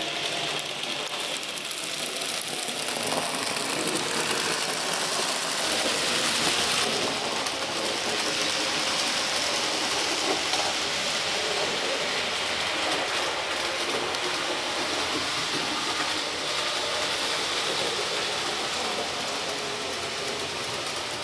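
N gauge model train running along the track, a steady mechanical whirr that goes on without a break.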